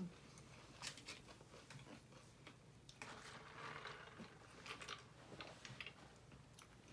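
Faint chewing and small mouth clicks of people eating chicken nuggets, with scattered light ticks.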